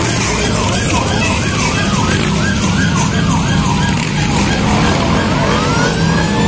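A siren yelping, sweeping up and down about three times a second. About five seconds in it changes to a slow rising wail. Motorcycle engines run steadily underneath.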